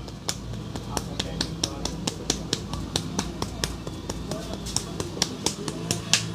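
A barber's hands clapping and slapping in a fast percussive massage, sharp claps coming about four or five a second, uneven in strength.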